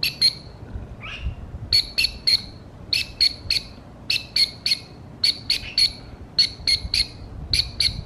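Short, high whistled notes in quick groups of three, repeated about every second, with one rising note about a second in: a recall whistle, the signal the African grey parrot has learned means food.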